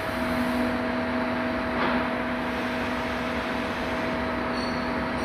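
CNC lathe running steadily during a turning and internal grooving job, a constant machine noise carrying two steady tones, one higher and one lower, the lower one coming in at the very start.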